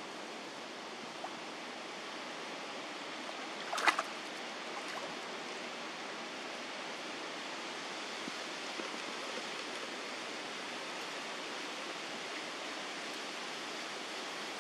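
Steady outdoor rushing noise, with one short sharp sound about four seconds in.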